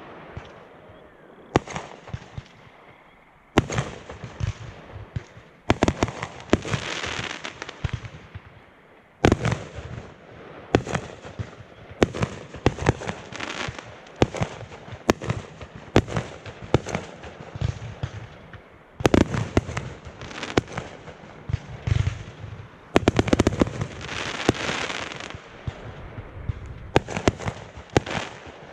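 Aerial fireworks bursting overhead: dozens of sharp bangs in quick clusters every second or two, with no lull.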